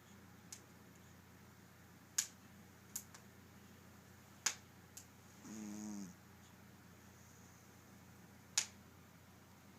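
A sleeping dog gives one short snore with a low, wavering pitch about halfway through, among several sharp, irregular clicks.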